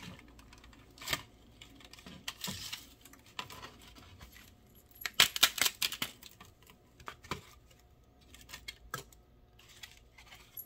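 Crackling and snapping of thin PLA support strands breaking away as a freshly 3D-printed helmet piece is lifted off the printer's glass bed and flexed. Scattered clicks, with a dense burst of cracking about five seconds in.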